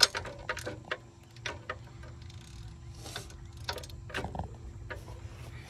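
Socket ratchet clicking and metal tools knocking at irregular moments while bolts on a small tractor engine are worked loose, over a low steady hum.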